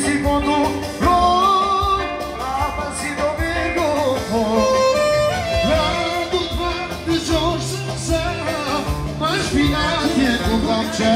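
Live wedding band playing Albanian folk dance music, with a clarinet carrying a wavering, ornamented melody.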